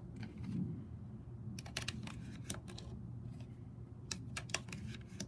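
Maglula UpLula plastic magazine loader in use, pressing pistol cartridges one at a time into a double-stack .40 caliber magazine. Sharp clicks and snaps come in a cluster about two seconds in and again around four seconds in, as each round seats against the spring.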